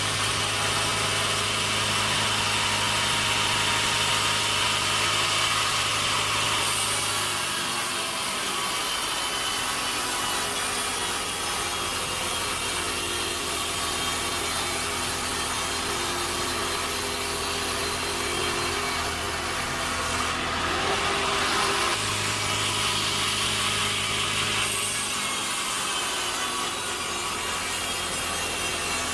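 Sawmill saw cutting through a log, a continuous rasping over the hum of the mill's motor. The low hum drops away about seven seconds in and comes back about twenty-two seconds in.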